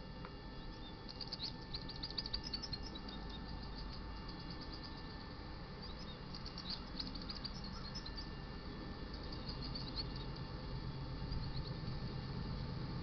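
Small songbirds chirping in quick, high trilled bursts, with pauses between, over a low steady rumble that grows slightly louder toward the end.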